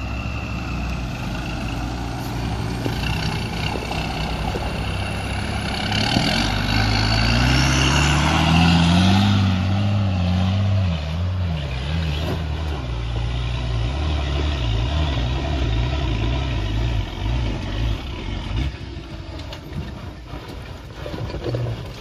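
Cummins 6BT straight-six diesel in a Mitsubishi L200 pickup, labouring up a steep, axle-twisting climb. The revs rise about six seconds in, then rise and fall repeatedly, and the engine note drops away a few seconds before the end.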